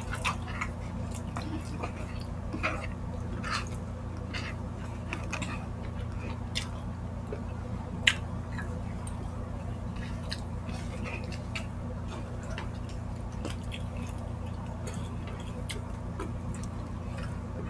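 Close-up eating sounds: chewing and wet mouth smacks, with fingers pressing rice and saucy stewed meat, scattered irregular clicks over a steady low hum. A single sharp click stands out about eight seconds in.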